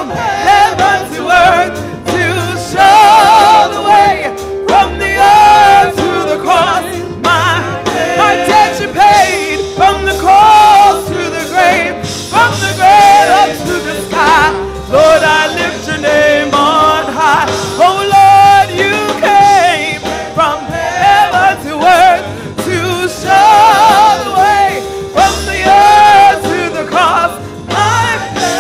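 A woman singing a gospel song solo into a microphone, her held notes wavering with vibrato, accompanied by sustained chords and bass from a Roland Juno-DS keyboard.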